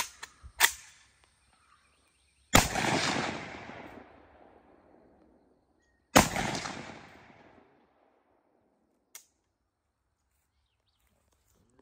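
Two rifle shots about three and a half seconds apart, each followed by a long fading echo, with a few sharp clicks before and after. Neither shot sets off the tannerite target: there is no explosion.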